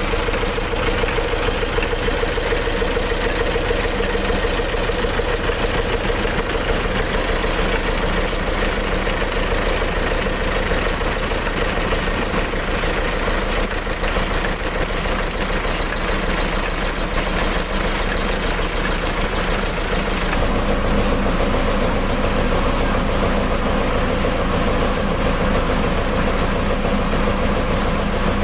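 Mitsubishi PS100 truck diesel engine running steadily while driving an N70 rice mill, the engine note and the mill's machinery noise blended together. About twenty seconds in, the low part of the sound changes and it gets slightly louder.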